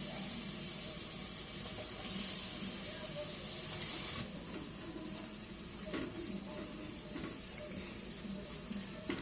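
Chopped tomatoes sizzling in butter and spice masala in a pressure cooker, a steady hiss that drops quieter a little after four seconds in.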